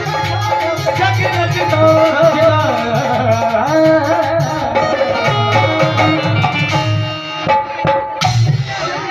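Live Punjabi folk music played loud over a PA system: a male singer with a steady hand-drum beat and a sustained melody line. The drumming drops out briefly a little after seven seconds in, then the music thins toward the end.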